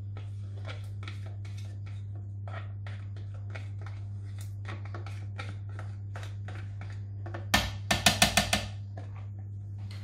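Soft crinkling and small clicks of a butter wrapper being squeezed and worked into a plastic blender jar, over a steady low hum. About seven and a half seconds in comes a quick run of about six sharp knocks.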